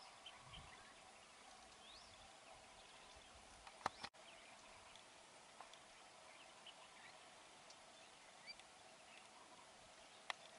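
Faint outdoor ambience: scattered short bird chirps and calls over a steady low hiss. There is a sharp click about four seconds in and another near the end.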